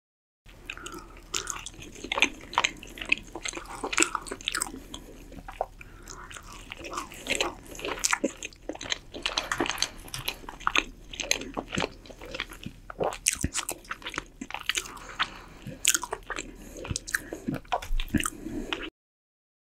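Close-up eating sounds of a whole roast chicken being pulled apart by gloved hands: dense, irregular crackling of the skin and wet tearing of the meat, mixed with biting and chewing. The sound cuts out to dead silence near the end.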